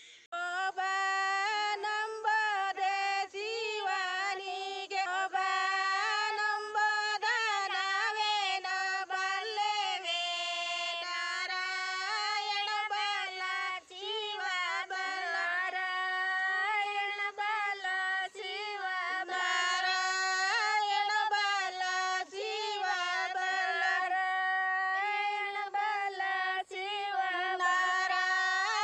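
Women singing a village folk song without instruments, in long held notes that bend and waver, with only brief breaths between lines.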